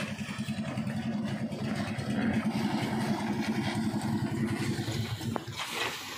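Small fishing boat's engine running with a fast, even putter, which stops about five seconds in.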